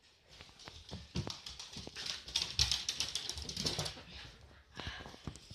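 A small dog scuffling on a fabric sofa: a dense run of rustles and scratchy clicks, loudest in the middle, with a shorter burst near the end.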